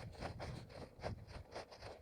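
A runner's footsteps on forest ground, heard from a head-mounted camera as an even rhythm of about three to four footfalls a second.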